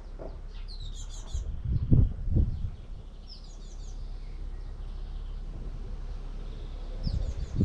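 Birds chirping in short, high, quick trills, three times, over a steady low hum. A few low thumps, the loudest about two seconds in and again near the end.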